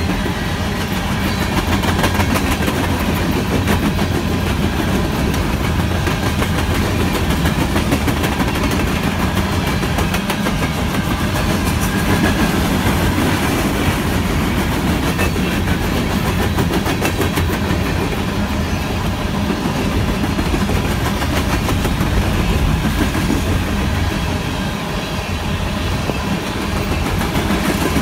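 Empty coal cars of a long freight train rolling past on steel wheels: a steady rumble with rapid clicking as the wheels cross the rail joints.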